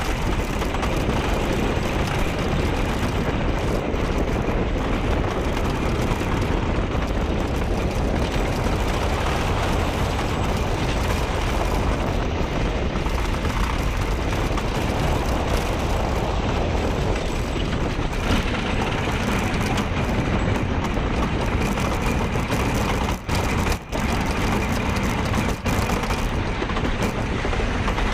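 GhostRider wooden roller coaster train running along its track, heard from on board as a loud, steady rumble and rush of wind, with a couple of brief drops in the noise near the end.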